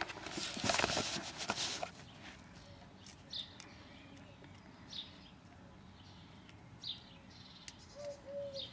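Rustling and clicking handling noise from the air rifle's pellet magazine as pellets are fitted, for about two seconds. Then quieter, with a bird chirping faintly every second or two.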